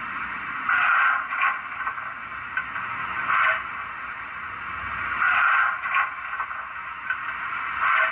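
Coal-shovelling sound effect from a model locomotive's sound decoder (a Bachmann OO gauge 94XX with a ZIMO decoder and Digitrains sound file), played through its tiny sugar-cube speaker: irregular shovel scrapes every second or two, thin, with little bass.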